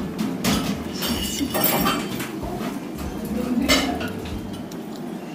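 Metal spoon clinking and scraping against a ceramic plate several times while cutting and scooping mango sticky rice.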